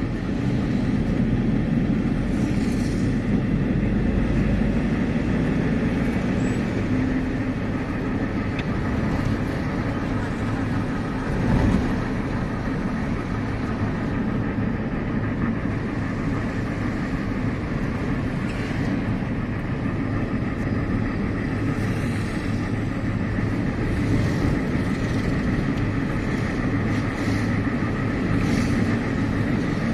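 Car engine and road noise heard from inside the moving car, a steady rumble, with one brief thump about eleven seconds in.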